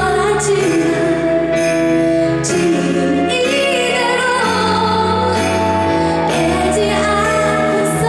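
A woman singing a slow song over instrumental accompaniment, with held chords that change every second or two.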